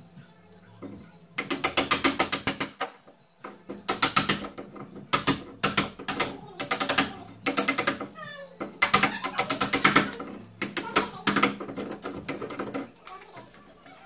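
Wood chisel paring the sides and ends of a lock mortice in a wooden door edge, in about eight strokes, each a quick run of clicks. This is the final trimming so the mortice lock case slots in.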